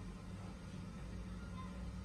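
Steady low hum of background room noise, with a brief faint high tone about one and a half seconds in.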